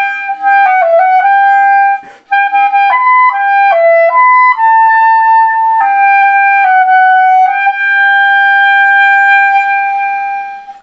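Solo clarinet playing the closing phrase of a slow ballad melody, one note at a time, with a brief pause for breath about two seconds in. It ends on a long held note that fades away near the end.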